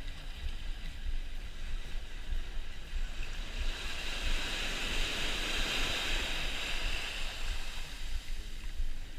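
Ocean waves breaking and washing up the beach, swelling to a loud hiss in the middle and fading again, over a low rumble of wind on the microphone.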